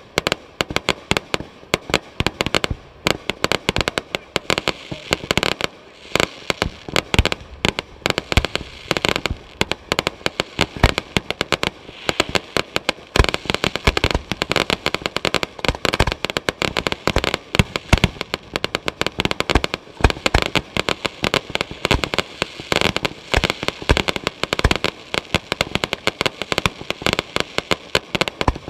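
Fireworks going off in a dense, unbroken barrage: many sharp cracks and pops each second, one on top of another.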